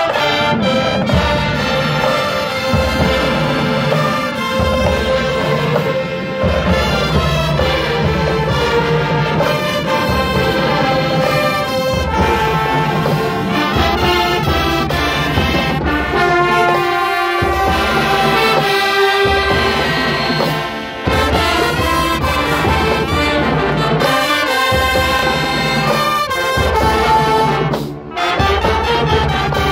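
High school marching band playing from the stands, a loud brass-heavy sound of sousaphones, trumpets and trombones over a steady low beat. It breaks off briefly twice, about 21 and 28 seconds in.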